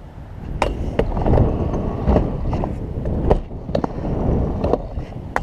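Stunt scooter's wheels rolling fast on concrete, a steady rumble broken by several sharp clacks as the deck and wheels hit ramps and land tricks.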